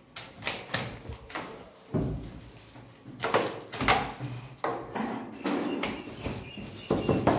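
Hands handling a new carrom board in its plastic wrap and a small box of carrom coins: irregular rustling, taps and clicks.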